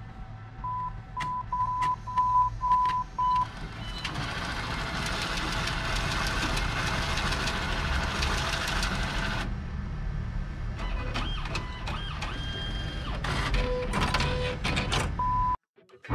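ATM keypad beeping as buttons are pressed, a series of short beeps at one pitch, then the machine whirring for about five seconds as the cash dispenser counts out the notes. A few more beeps follow near the end.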